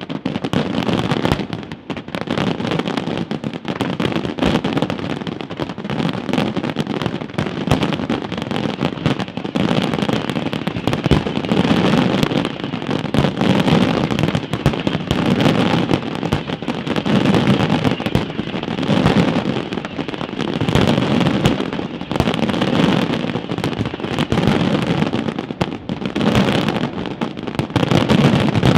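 Professional fireworks display at full intensity: a dense, unbroken run of aerial shell bursts and launches, with no pause.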